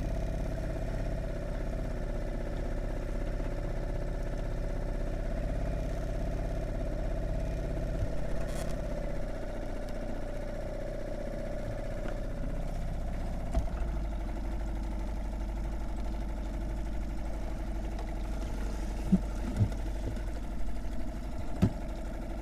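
A motor running steadily, with a held tone over a low hum.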